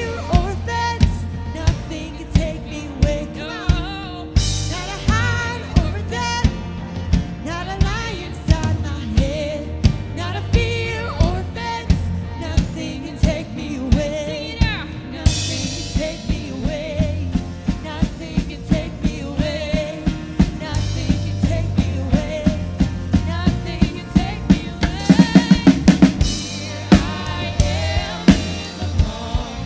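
Worship band playing a song, led by a drum kit keeping a steady kick-and-snare beat under bass and singing, with a rapid drum roll near the end.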